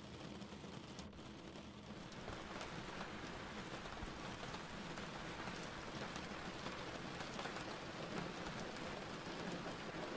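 Steady rain falling, a dense hiss of drops that thickens and grows a little louder about two seconds in.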